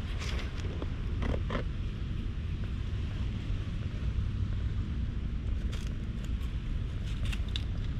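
Wind rumbling on the microphone, with a few short rustles and clicks about a second in and again near the end.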